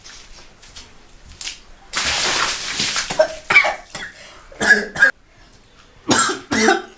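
A bucket of water is dumped over a seated man, a splash of about a second starting about two seconds in, followed by him coughing and spluttering in short bursts several times.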